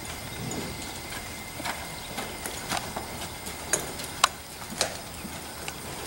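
Horse loping on soft arena dirt: its hoofbeats come with a run of sharp, uneven clicks, a few a second, the loudest a little over four seconds in.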